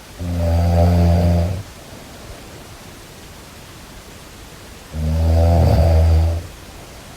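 Snoring: two low-pitched snores, each about a second and a half long, one near the start and one about five seconds in, over a steady hiss.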